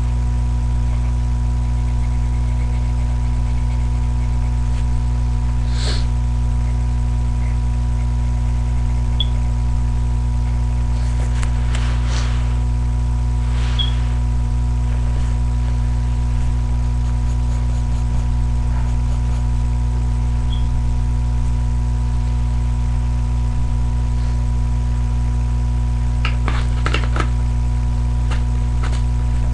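Steady electrical hum, a stack of low buzzing tones with a thin higher whine, at an unchanging level throughout. A few faint clicks and scratches come through now and then, with a small cluster near the end.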